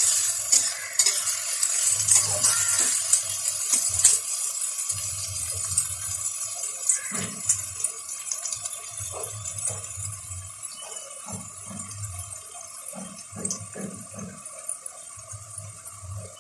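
Diced onions sizzling in hot oil in a kadai, with a few scrapes and knocks of a spatula against the pan in the first half. The sizzle is loudest at first and fades gradually.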